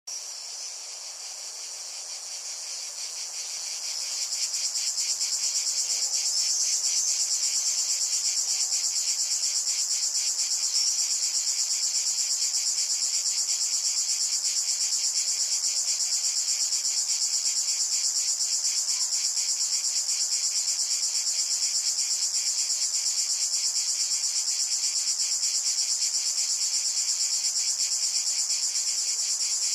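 Insects chirring: a dense, steady high buzz with a fast regular pulse, fading in over the first four seconds.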